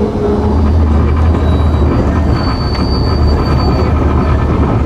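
Tram running on its rails, heard from inside the car: a steady low rumble from the wheels, with a thin high wheel squeal for about a second and a half in the middle.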